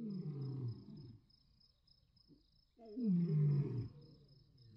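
Lion growling twice, each growl low and falling in pitch: one right at the start, and a louder one about three seconds in.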